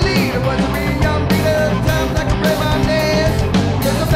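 Rock music: a singing voice over electric guitar and drums at a steady beat.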